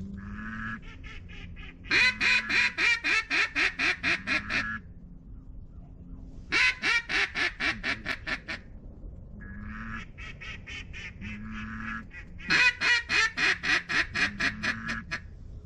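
Mallard-style duck call blown in three loud runs of about ten to thirteen evenly spaced quacks each, with softer quacks between the runs. It is calling to a group of ducks working the decoys.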